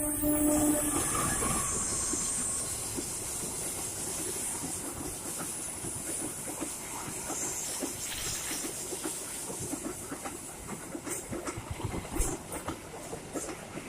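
Train hauled by a CC 206 diesel locomotive passing at moderate speed. The tail of its horn ends within the first second, then the cars go by with a steady rushing noise and wheels clicking over rail joints, slowly fading.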